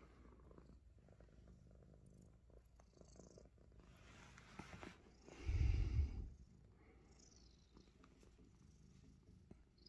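Himalayan Persian cat purring steadily and softly, with one louder low bump lasting under a second just past halfway.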